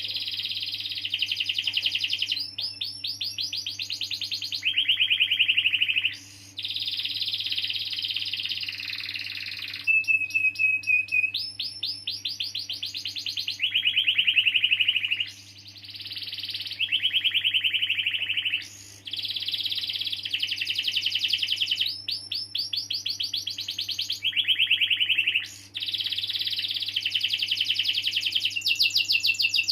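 Domestic canary singing a long continuous song of rapid rolls and trills, switching to a new phrase every second or two with only brief pauses, over a steady low hum.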